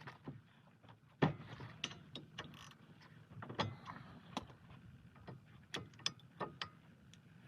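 Irregular metallic clicks and knocks of brake parts and tools being handled while the brakes are put back together, with the loudest knock about a second in.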